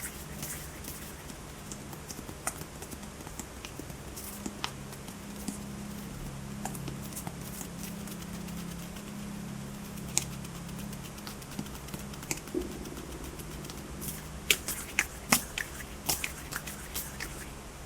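ASMR hand sounds close to the microphone: scattered sharp clicks, snaps and taps of fingers and palms, coming thicker near the end, over a steady low hum.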